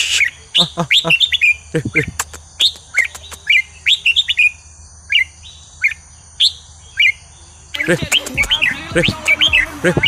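Red-whiskered bulbul singing short, chirping phrases one after another. A quieter spell with sparser notes falls in the middle, and lower, sliding sounds from another source join in the first couple of seconds and again near the end, when the calls become dense and overlapping.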